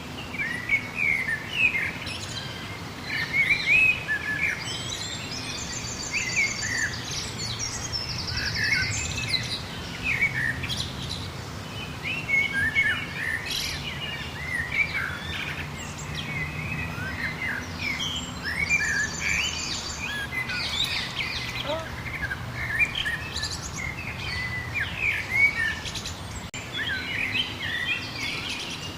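A chorus of songbirds chirping and singing continuously, with many short overlapping calls. Twice, a fast, high trill of rapidly repeated notes stands out.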